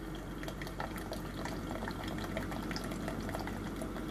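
Coffee trickling from a single-serve coffee maker into a ceramic mug, a steady pouring sound dotted with small drips, over a low steady hum from the brewer.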